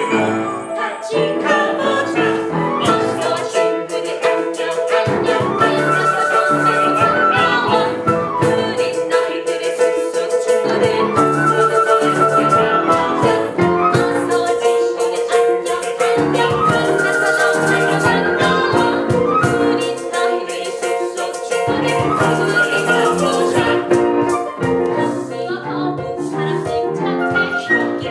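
Instrumental music with rattle-like shaker percussion and a melodic phrase that rises and falls, repeating about every five to six seconds.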